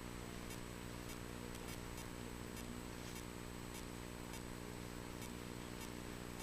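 Steady low electrical hum, the kind picked up by a stage microphone and sound system, over faint hiss with a few faint irregular clicks.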